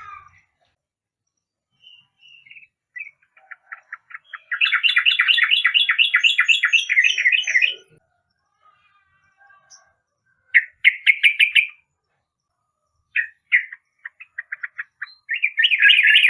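Yellow-vented bulbul singing: bursts of rapid, bubbly chattering notes separated by short pauses, the longest run lasting about three seconds.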